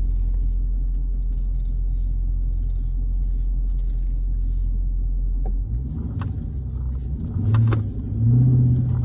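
Car engine running, heard from inside the cabin: a steady low rumble, then from about six seconds in the engine note changes, rising and swelling twice as the car moves.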